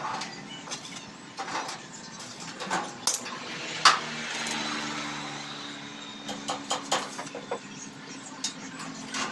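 Scattered metallic clinks and knocks from tools and steel parts being handled while working under a stainless-steel tricycle sidecar. A low, steady engine hum comes in about halfway through.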